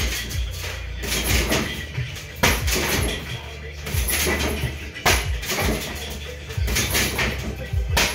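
Kicks striking a hanging heavy punching bag: three sharp impacts about two and a half seconds apart, over background music.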